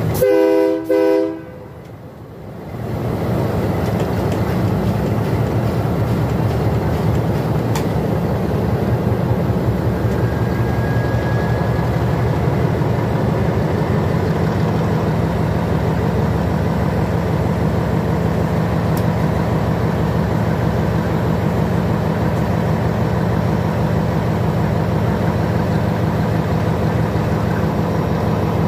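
Locomotive horn sounds a brief chord about half a second in, then the diesel locomotive runs with a steady low rumble of engine and running gear.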